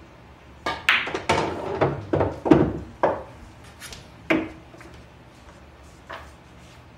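Pool balls striking each other and knocking into cushions and pockets: a quick run of hard clicks and knocks for about two seconds, then two more single knocks.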